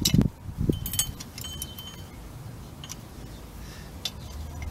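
Scattered metallic clicks and clinks from the rear drum brake hardware of a 2007 Honda Civic: shoe, springs and hold-down clip knocking against the backing plate as they are fitted by hand. A few of the clinks ring briefly, about a second in.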